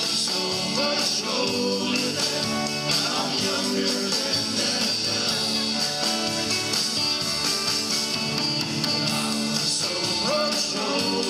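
Live rock band playing 1960s-style music through PA speakers: electric guitars, keyboard and drum kit, with a singing voice over them.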